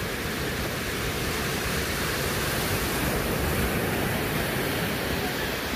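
Steady rushing noise of surf on the beach, with wind rumble on the microphone.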